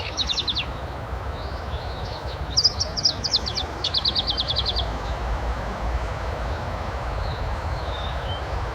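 Bird chirping in quick runs of short high notes, three runs in the first five seconds and a few single faint notes later, over a steady low rumble of outdoor ambience.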